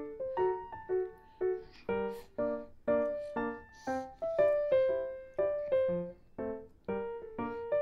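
Background piano music: a melody of single notes struck about two or three a second, each fading before the next.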